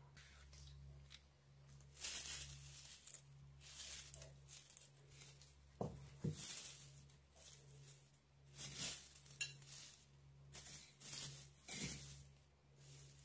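Utensil clinking and scraping on a ceramic plate while rice and lentils are shaped into a mound and crispy fried onions are piled on top, in quiet, irregular rustling strokes with two sharper clinks about six seconds in.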